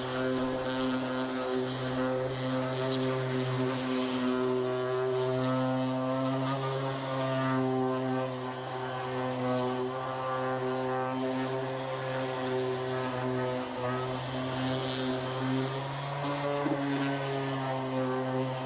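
Electric sander running steadily while sanding a car bumper with 400-grit paper, its motor hum dipping and shifting slightly in pitch as it is pressed on and eased off, with a scratchy rasp of paper on paint.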